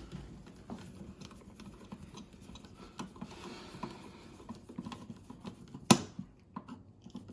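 Scattered small taps and scrapes of hands and a tool working at a wall switch box while fitting a dimmer switch, with one sharp click about six seconds in.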